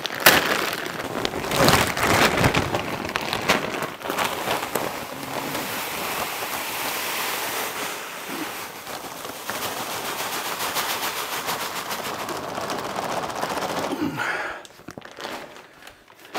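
Malted grain poured from a sack into a mash tun of hot water, a dense rattling hiss like heavy rain. It is loudest in the first few seconds and stops shortly before the end.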